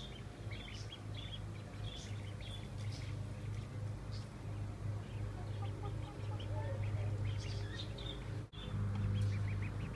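Ducklings peeping: many short, high chirps scattered throughout, over a steady low hum. The sound drops out briefly about eight and a half seconds in.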